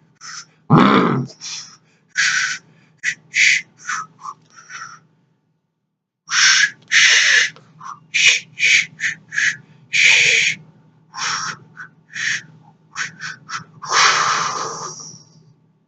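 Cartoon monkey chattering: quick series of short, high squeaky calls, with a break about five seconds in and one longer call that falls away near the end, over a faint steady hum.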